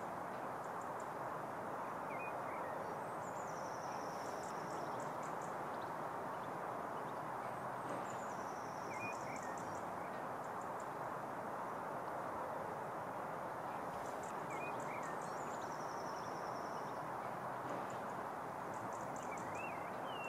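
Outdoor ambience: a songbird repeats a short, high song phrase about every five seconds, a few quick notes followed by a trill, with occasional lower chirps. A steady background noise runs underneath.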